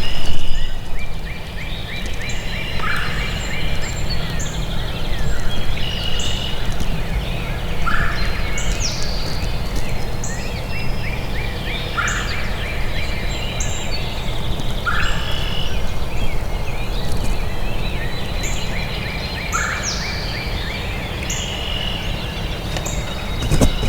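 Wild turkey gobblers gobbling several times, a rapid rattling call, with short higher notes from other birds between, over a steady low rumble.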